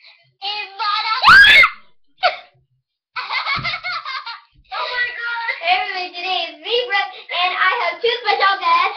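A young girl laughing and squealing, with a loud, sharply rising shriek about a second in, then near-continuous giggly vocalising.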